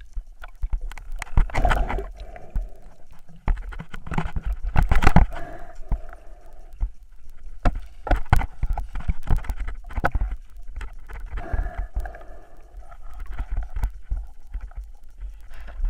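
Muffled underwater noise picked up by a camera in a waterproof housing: a steady low rumble with irregular swishes, knocks and clicks as a spearfisher moves through submerged snags.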